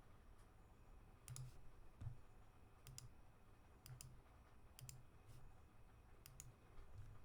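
Faint computer mouse clicks over near silence, some single and some in quick pairs, roughly once a second.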